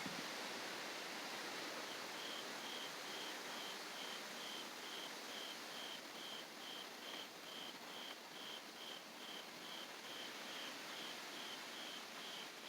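An insect chirping steadily, short high pulses about three a second starting about two seconds in, over a steady hiss of outdoor storm ambience.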